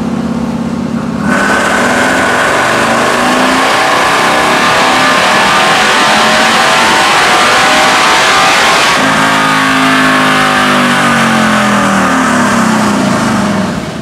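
Harley-Davidson Milwaukee-Eight V-twin, built to 135 cubic inches, on a chassis dynamometer. It runs steadily at first. About a second in it goes into a loud full-throttle pull that holds for several seconds, then the throttle closes about nine seconds in and the engine winds down with a falling pitch.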